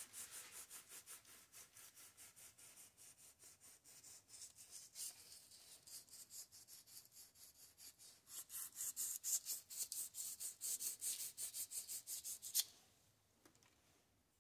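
Sandpaper rubbed by hand against the end of a Kohler Magnum M18 engine valve stem, in quick rasping back-and-forth strokes, several a second. This takes metal off the stem end to open up the valve-to-lifter clearance. The strokes grow louder about eight seconds in and stop suddenly near the end.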